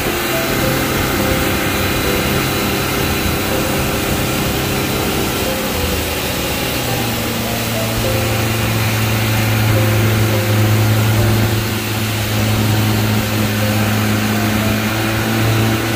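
Boat outboard motor running at speed, over a steady rush of wind and water. Its engine note shifts about six to seven seconds in and runs a little louder after.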